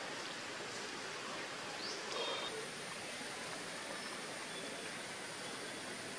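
Steady outdoor background hiss, broken by one short rising chirp about two seconds in.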